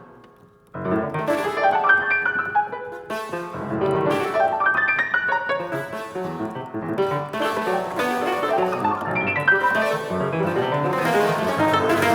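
Solo piano played in dense, fast flurries of overlapping notes ranging over much of the keyboard. There is a brief lull just under a second in before the playing comes back in strongly.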